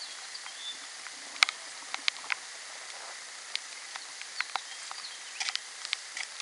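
Boots crunching through fresh, ankle-deep snow in slow, irregular steps, each a short sharp crunch.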